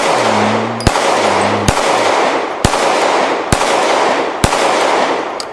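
A SIG P365 XL 9mm semi-automatic pistol firing steady aimed shots, seven in all, about one a second, each trailing off in echo.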